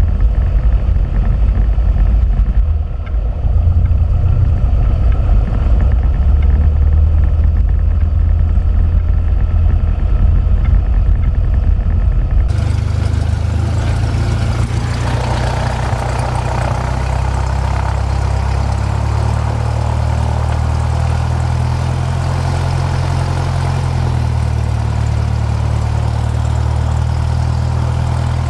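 Cessna 172P's four-cylinder Lycoming engine and propeller running at low taxi power, a loud steady low drone. About twelve seconds in the sound changes abruptly, with more hiss above the drone.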